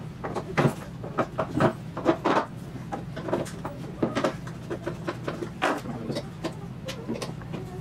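Irregular light clicks and knocks of metal screws being pushed into holes in plywood, and of the plywood pieces being handled on a bench.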